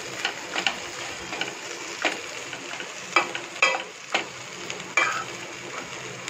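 Slotted spatula scraping and turning colocasia (taro) pieces in a non-stick pan, with frying oil sizzling steadily underneath. The scrapes come irregularly, about one or two a second, as the taro dry-roasts crisp without any water.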